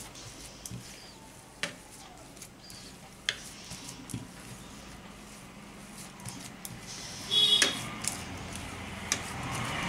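Quiet soft squishing and light taps of a bare hand kneading and pressing a moist boiled-potato and semolina mash on a plastic plate. A brief, louder high-pitched sound comes about seven and a half seconds in.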